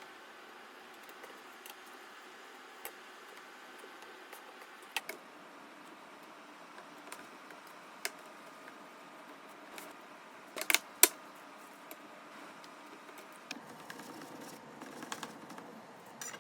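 Scattered light clicks and taps of kitchen utensils and containers being handled, with two sharper clacks close together about eleven seconds in and a run of small ticks near the end, over a faint steady hum.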